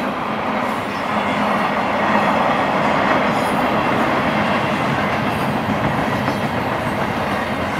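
Double-stack intermodal well cars loaded with shipping containers rolling past: a steady, loud rushing rumble of steel wheels on rail.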